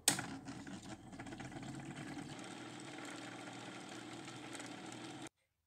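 Watch-cleaning machine switched on with a click, its motor then running steadily with the parts basket lowered into the cleaning jar. The sound cuts off suddenly about five seconds in.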